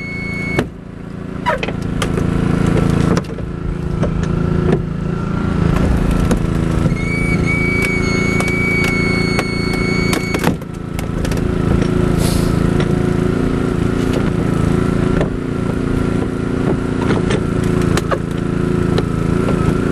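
Hydraulic rescue spreader forcing a car's rear door open against the U-bolt, over the steady engine drone of the tool's power unit. Sheet metal cracks and pops throughout, and a high metal squeal runs from about 7 to 10 seconds in.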